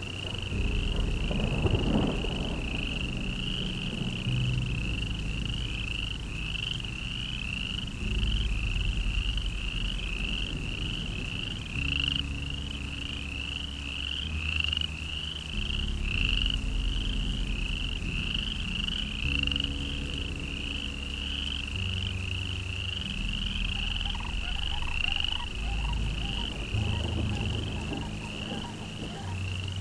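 A frog-like calling animal chirping steadily, two or three high short chirps a second without a break, over low steady droning tones that shift pitch every second or two.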